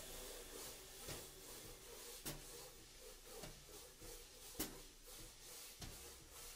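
Quiet, sparse drumming: a soft hit about every second over a low steady hum.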